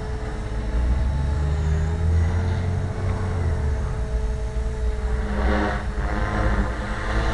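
Electric 450-size RC helicopter (HK450) flying overhead at about 3000 rpm headspeed: a steady whine of its motor and rotors that dips slightly in pitch about two seconds in.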